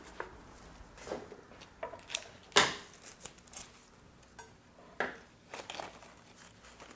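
Leafy flower stems and foliage rustling and crinkling as chrysanthemums are pushed into a floral arrangement, with scattered light clicks and taps of handling on a steel worktable. A sharp knock about two and a half seconds in is the loudest sound, with another about five seconds in.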